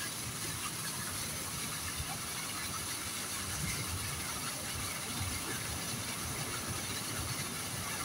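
Steady background hiss with an uneven low rumble beneath, with no distinct events.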